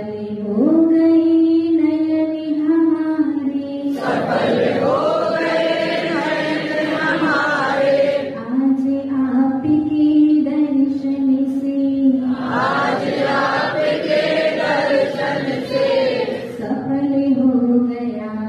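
A woman's voice singing a devotional chant through a microphone in long held notes. Louder, fuller passages start about four seconds and about twelve seconds in.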